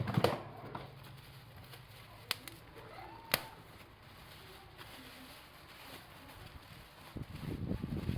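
Handling noises from unpacking a replacement phone screen: a few sharp clicks and knocks, then a burst of crackling rustle near the end.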